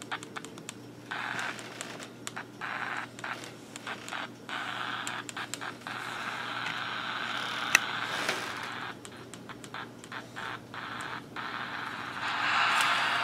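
Shortwave static hiss from a Grundig E Traveller VII portable radio's small speaker, cutting in and out many times as the band is tuned. There is a single sharp click about two-thirds of the way through, and the hiss comes back louder and steadier near the end.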